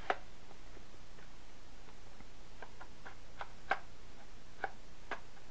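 A slim optical drive being slid and worked into a slim USB enclosure: a few light, irregular clicks and taps of the drive's casing against the enclosure, the first the sharpest.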